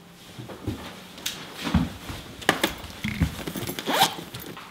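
Handling noises: rustling, several short zip-like strokes and a few light knocks, as of a handbag being handled and zipped.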